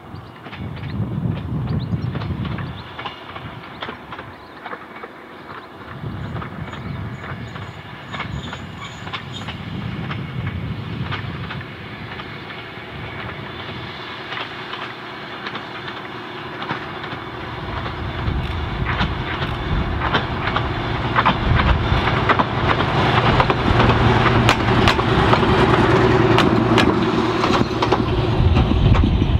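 Heritage Victorian Railways rail motor approaching and passing, its engine hum growing steadily louder. Wheels click over the rail joints more and more densely as it comes close near the end.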